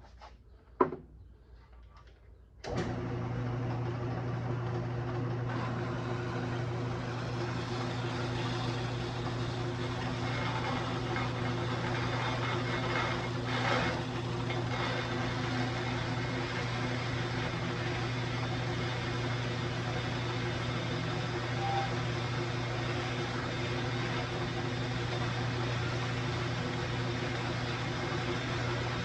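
A sharp click about a second in, then an electric metal-cutting saw starts about three seconds in and runs with a steady motor hum while cutting steel.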